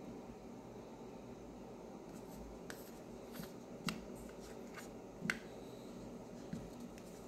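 Small plastic clicks and taps as true-wireless earbuds are handled and pulled out of their charging case, several sharp clicks with two louder ones about a second and a half apart, over a faint steady hiss.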